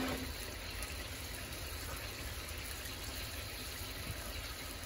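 Pork ribs simmering in soy-and-sugar braising liquid in a carbon-steel wok, a steady bubbling hiss.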